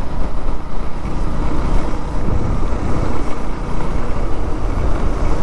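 Motorcycle riding along a road: steady engine and road noise with wind buffeting the microphone.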